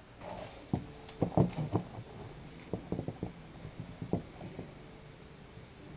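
Scattered clicks and light rustling of a cardboard hang card and its plastic tag fasteners being worked off a new pair of motocross gloves by hand.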